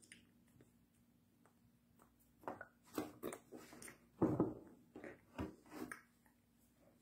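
Short, irregular bumps and rustles from a person signing close to the microphone, hands and body moving. They start about two and a half seconds in and the strongest comes a little past the middle.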